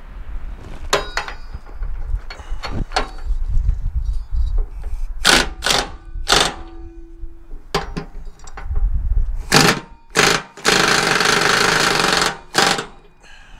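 Impact wrench hammering in several short bursts, then one longer run of about a second and a half near the end, with sharp knocks of metal parts being handled in between.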